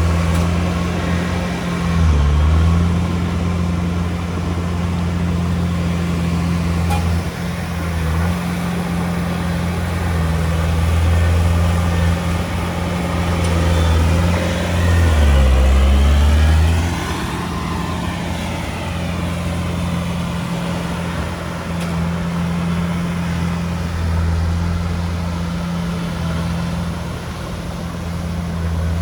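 Komatsu D31P bulldozer's diesel engine working steadily. Its pitch dips briefly about two seconds in, and again in the middle, where it sags and climbs back up as the engine takes load.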